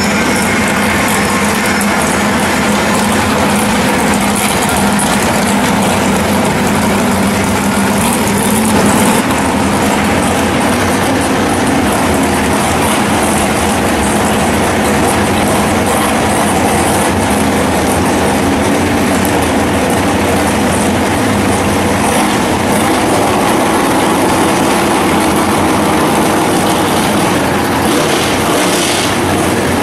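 A 1968 Camaro drag car's engine running at a steady, loud idle, with no revving or launch.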